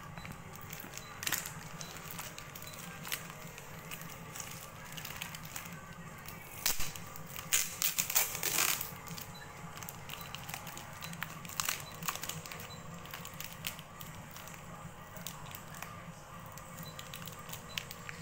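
Brown plastic packing tape being peeled and torn off a cardboard box, with the cardboard flaps ripping, in a run of crackling and tearing sounds, loudest about eight seconds in.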